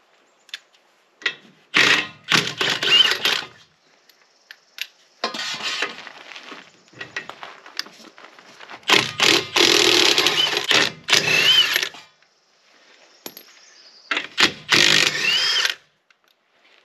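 Cordless impact wrench loosening the lug nuts on a dually pickup's outer rear wheel. It runs in four bursts of one to two seconds each, and several bursts end in a short rising whine.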